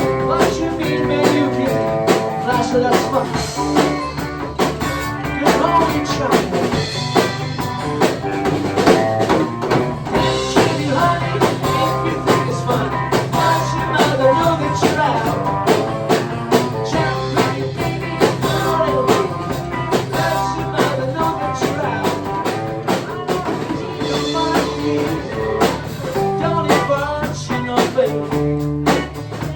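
Live band playing blues-rock, with guitar and a drum kit over a steady beat.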